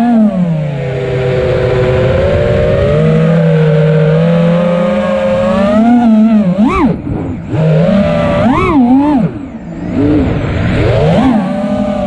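FPV quadcopter's brushless motors and propellers whining, the pitch swooping up and down with the throttle, with sharp rising punches about 7, 9 and 11 seconds in. Wind rush on the onboard camera's microphone sits underneath.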